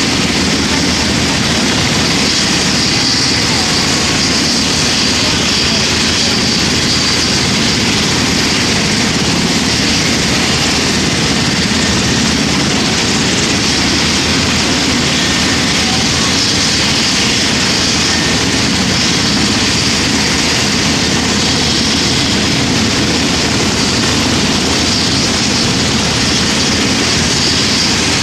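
Military helicopters running on the ground before take-off: a steady turbine whine over the rumble of the engines and rotors, unchanging throughout.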